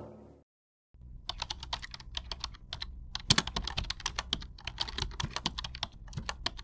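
Computer keyboard typing: rapid, irregular key clicks that start about a second in, after a brief silence.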